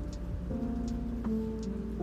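Gentle instrumental background music, with held notes that change every half second or so.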